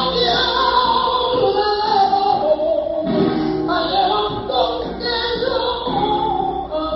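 A female flamenco singer (cantaora) singing long, wavering held notes over flamenco guitar accompaniment.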